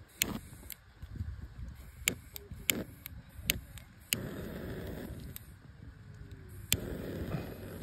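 Handheld lighter held under a stack of pallet wood, clicking sharply several times. A steady rushing hiss starts abruptly about four seconds in and comes again near the end as the flame is held to the wood.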